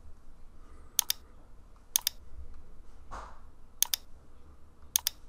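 Computer mouse clicking four times, each click a quick press-and-release double click, about a second apart.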